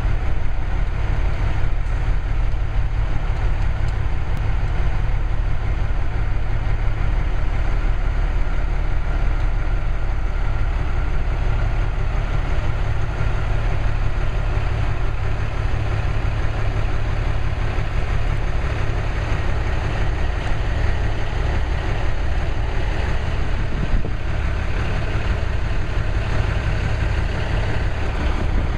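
Semi-truck's diesel engine running, a steady low drone heard from inside the cab.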